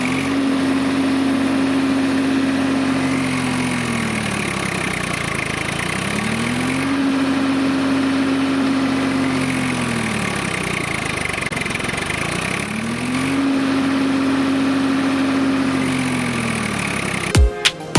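A small motor running with a steady hum whose pitch rises, holds and then sinks again three times, as it speeds up and slows down.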